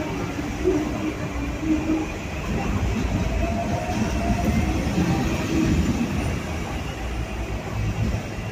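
Hong Kong double-decker tram running along its street tracks, heard from on board as a steady rumble of wheels on rail.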